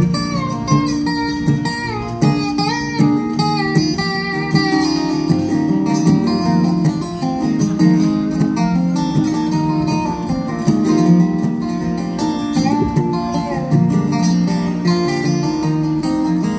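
Instrumental break of a country song: an acoustic guitar strums steady chords while a lap-style slide guitar plays the lead, its notes gliding up and down between pitches.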